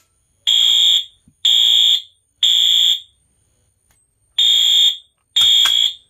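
Fire alarm horn strobe powered by three 9-volt batteries, sounding a loud, high electronic beep in a temporal-three evacuation pattern: three half-second blasts a second apart, a pause, then the next group starting. A few sharp clicks come over the last blast as the pull station is handled.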